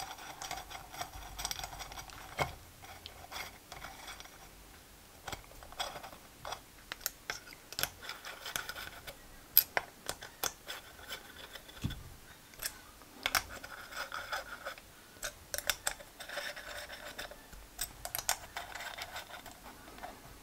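Small screws being turned in by hand to fasten the sump to an aluminium model V6 engine block: irregular clicks, ticks and scratching from the hand tool and metal parts, with a few sharper metal taps.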